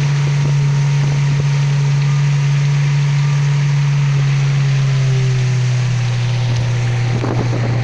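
Small river boat's motor running steadily under way, with water rushing and spraying along the hull; the engine note drops a little about five seconds in.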